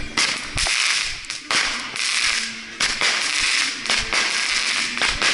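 Consumer fireworks going off in close succession: a run of loud, noisy bursts about a second each, broken by sharp cracks.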